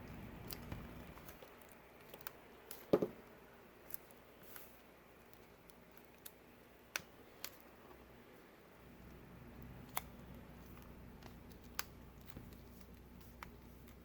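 Faint scattered clicks and taps of a new iPad screen being handled and set onto its adhesive, with one louder knock about three seconds in.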